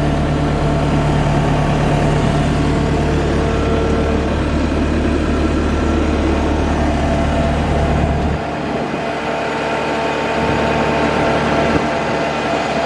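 Diesel engine of a Bobcat 864 tracked skid steer running steadily. The deep low rumble drops away suddenly about eight seconds in, while the engine carries on.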